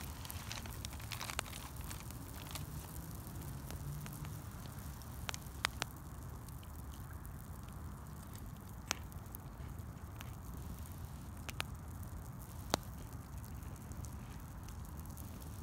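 Wood campfire burning: a steady low rumble with light crackling and a handful of sharp, isolated pops spread through the middle and later part.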